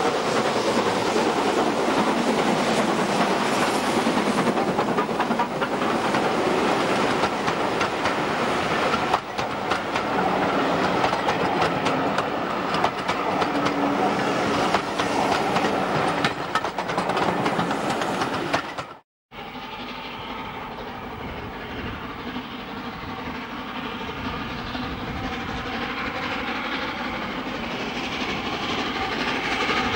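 Steam train passing close by: the locomotive works hard under heavy exhaust, then the passenger coaches clatter past over the rail joints. About two-thirds of the way in the sound cuts off suddenly, and a quieter, more distant steam train running on a curve follows.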